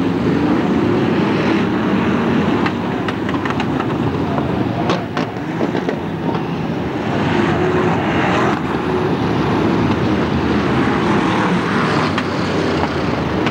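BriSCA stock cars racing round the oval: a steady, loud din of many engines running hard together, with a few sharp knocks about five seconds in.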